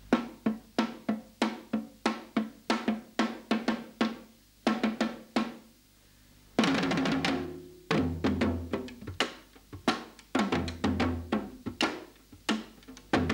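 Three Senegalese hand-and-stick drums playing a Senegalese rhythm together: sharp stick cracks and open palm strokes on tight skin heads, several strokes a second. The playing breaks off for a moment about six seconds in, then comes back fuller, with deeper tones from the larger drum.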